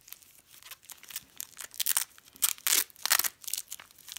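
Plastic bubble wrap crinkling and rustling as it is pulled open by hand, in irregular crackling bursts that grow louder about halfway through.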